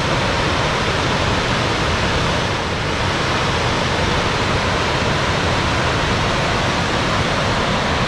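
Steady rush of a wide, cascading river waterfall.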